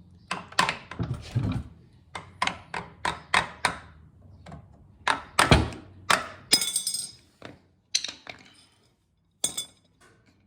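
Screwdriver being whacked over and over to shock loose an overtightened screw on an outboard's lower unit: quick runs of sharp metallic knocks, the loudest about five and a half seconds in. A brief clattering rattle follows, then a few spaced knocks near the end.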